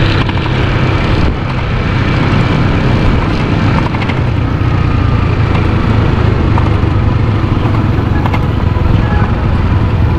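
A motorcycle being ridden at a steady pace: its engine runs evenly under a constant rush of road and wind noise.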